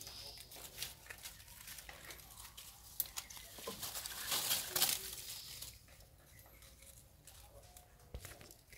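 Macaques shifting on dry leaves and rock: scattered rustling and small clicks, with a longer, louder rustle about four to five seconds in.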